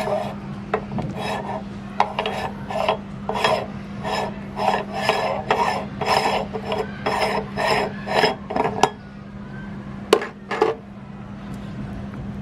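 A meat grinder crushing and scraping snacks in rhythmic grinding strokes, about two a second, over a steady low hum. The grinding stops a little before the end, and a couple of sharp clicks follow.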